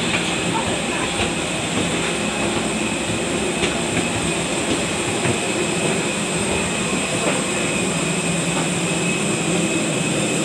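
Steady loud drone of a parked airliner's jet turbine machinery, with a constant high whine over it and a few faint taps.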